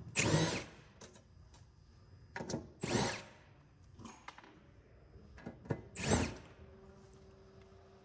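Cordless power driver backing screws out of a metal electrical enclosure's lid: three short whirring bursts, about half a second in, about three seconds in and about six seconds in, with faint clicks between them.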